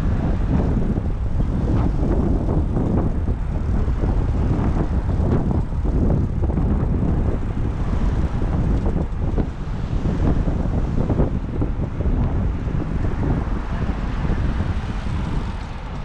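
Wind rumbling over the microphone of a camera riding on a moving bicycle, mixed with the steady noise of car traffic on the road alongside.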